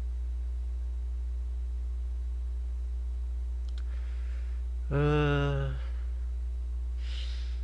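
Steady low electrical hum, with a couple of faint clicks a little before four seconds in and a man's short, level-pitched "hmm" about five seconds in, with soft breaths around it.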